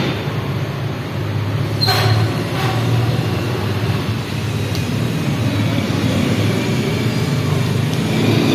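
A steady low mechanical hum, with a sharp click about two seconds in and a fainter one shortly after.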